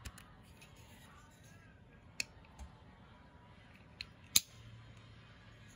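Spyderco Urban slipjoint folding knife being opened and closed by hand: a few sharp metallic clicks as the blade snaps into its detent, two close together about four seconds in, the second the loudest.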